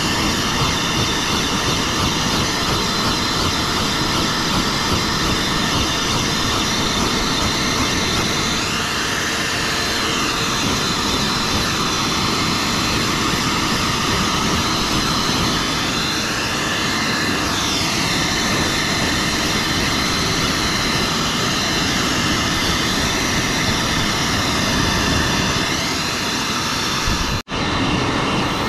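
High-velocity dog grooming dryer blowing air steadily through its hose. The sound drops out for an instant near the end.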